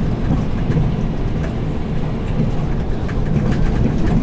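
Scania P360 dump truck's diesel engine running steadily as the unladen truck drives along, heard from inside the cab as a loud, even low rumble mixed with road noise.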